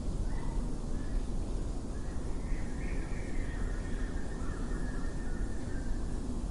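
Birds calling faintly, short chirps and thin whistled notes, over a steady low rumble.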